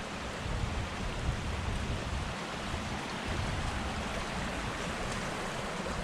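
Steady road and wind noise from a moving vehicle, a continuous hiss over an uneven low rumble.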